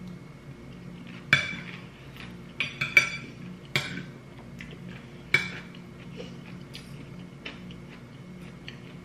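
Metal spoon and fork clinking and scraping on a ceramic dinner plate while eating: about six sharp clinks in the first five or so seconds, then lighter taps. A faint steady hum runs underneath.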